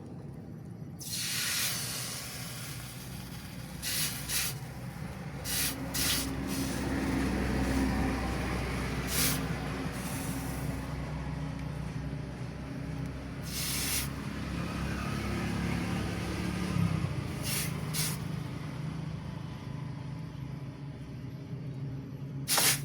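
Short bursts of hissing, about eight of them at irregular intervals, over a steady low machine hum.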